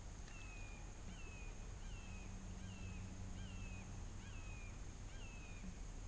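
A bird calling faintly: a repeated series of about seven short, slurred notes, each rising then dropping in pitch, roughly one every three-quarters of a second.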